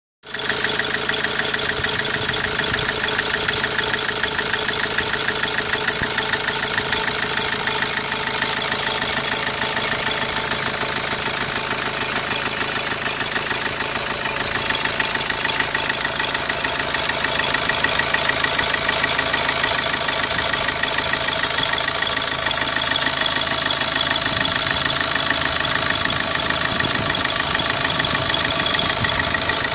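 Opel Corsa D 1.3 CDTI four-cylinder turbodiesel engine idling steadily with a rapid, even rhythmic pulse. This is the engine noise shown as a fault to be diagnosed.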